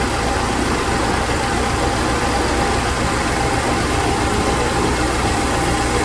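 A 2012 Chevrolet Equinox's 2.4 L Ecotec four-cylinder engine idling steadily. Its number 2 coil is wired to a spark tester instead of the plug, so that cylinder is not firing. The coil has failed.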